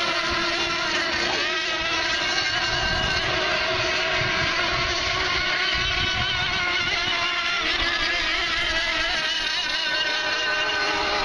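Several 1/8-scale radio-controlled race boat engines running flat out together, their high-pitched tones overlapping and wavering up and down as the boats race the course.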